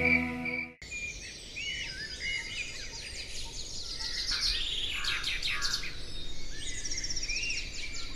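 Several birds chirping and calling, with short whistled notes and quick trills overlapping one another. The last held note of a song cuts off about a second in.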